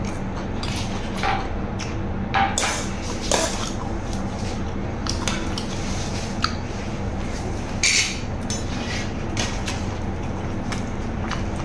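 Spoon and fork scraping and clinking against a metal serving tray as rice is scooped up, in scattered strokes with a few louder scrapes, over a steady low hum.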